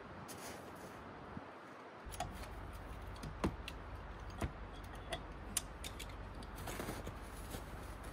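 A few irregular, sharp metallic clinks of a come-along hook and tow-strap hardware being attached at the rear of a stuck SUV, over a low steady rumble, with a soft crunching shuffle in snow near the end.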